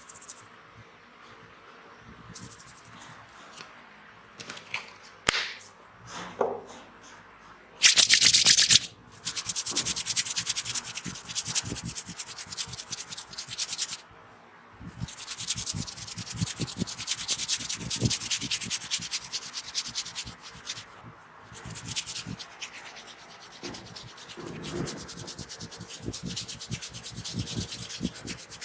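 Hands rubbing vigorously over hair and scalp in a head massage: a fast, scratchy rustle in long stretches with short breaks, loudest about eight seconds in.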